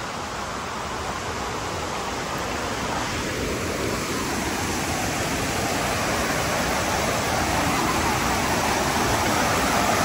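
Steady rush of falling water from a monsoon waterfall, growing slowly louder.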